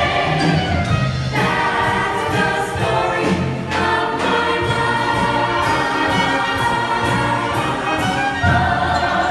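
Choir singing a musical-theatre number over orchestral accompaniment, with many voices holding sustained notes.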